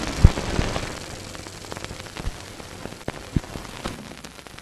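Old-film crackle: irregular clicks and pops over a steady hiss, with the loudest pop just after the start, slowly fading away.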